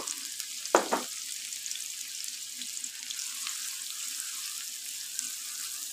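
Chopped onions sizzling and crackling in hot ghee in a wok as a wooden spatula stirs them. There is one short knock about a second in.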